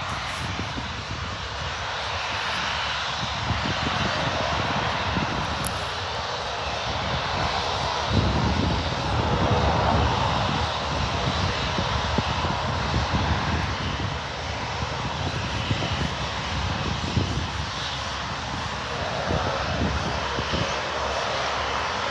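Jet airliner's engines running steadily as it moves slowly along the ground, with gusts of wind buffeting the microphone, heaviest about eight to eleven seconds in.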